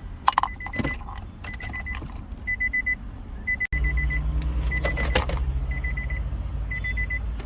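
2015 Nissan Altima's dashboard warning chime: quick runs of four or five short high beeps, repeating about once a second, over clicks and knocks. A steady low hum comes in about halfway through.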